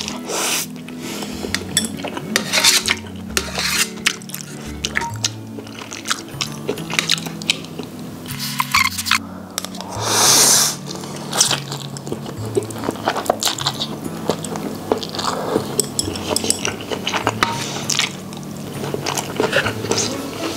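Mouth sounds of eating instant noodles: chewing, lip smacks and metal chopsticks clicking against a stainless steel tray, with one loud noodle slurp about ten seconds in. Background music with a stepping bass line plays throughout.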